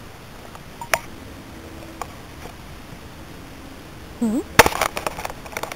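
A couple of sharp clicks, then near the end a brief vocal sound followed by a loud cluster of knocks and rustling: handling noise as plastic model horses and the camera are moved through dry grass close to the microphone.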